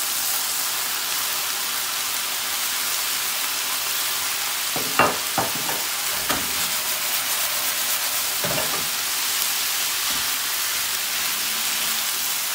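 Sliced hot dog and homemade longganisa frying in a pan: a steady sizzle, with a few short knocks and scrapes of a spatula against the pan about five to six seconds in and once more about two seconds later.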